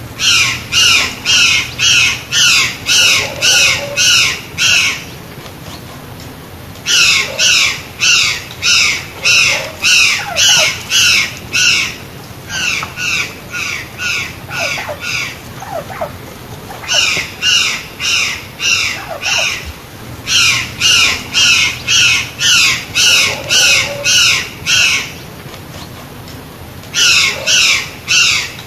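White-naped jay (gralha-cancã) calling loudly, repeating the same call about twice a second in runs of several seconds, broken by short pauses.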